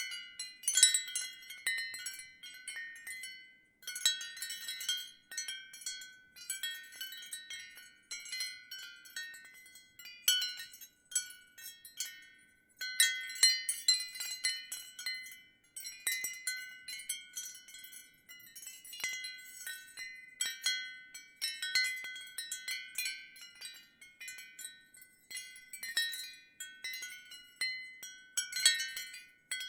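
Ceramic wind chime stirred by the wind, its pieces knocking together in irregular clusters of high, ringing strikes, with a few brief pauses.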